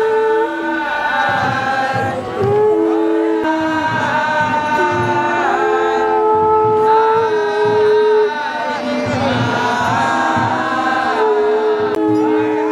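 A group of devotees singing a devotional kirtan chant together, voices holding long notes that step up and down, with drums beating underneath.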